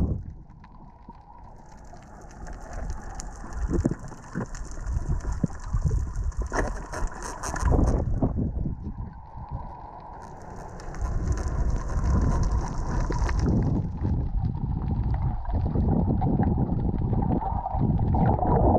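Muffled underwater rushing and bubbling picked up by a submerged action camera as a diver moves along a reef, with scattered clicks and knocks and a faint steady whine underneath. Near the end it swells into bubbling and splashing as the diver breaks the surface.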